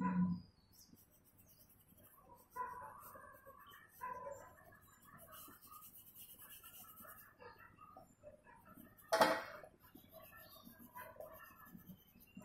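Soft scratching of oil pastel strokes on paper as grass is drawn, with faint scattered background sounds and one short, sharp, louder sound about nine seconds in.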